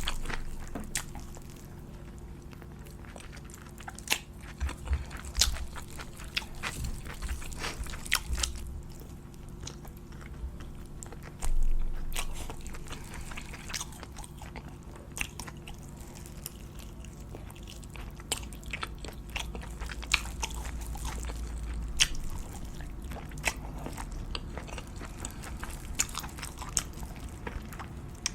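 Close-miked eating sounds: a person biting and chewing crunchy food, with scattered sharp crunches and a louder one about eleven seconds in.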